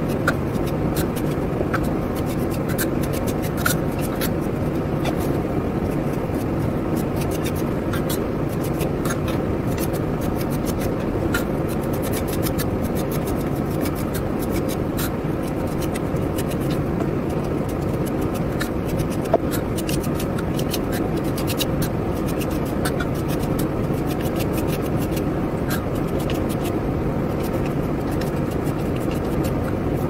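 Metal putty knife scraping and spreading wall putty on a wall and across a flat trowel, with many small ticks of the blade. All of it sits over a steady, low rumbling background noise.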